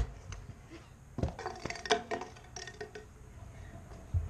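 Kick scooter knocking and clattering on concrete. There is a sharp knock at the start, then from about a second in a run of clanks and ringing metallic clinks lasting a second or two, and another knock near the end.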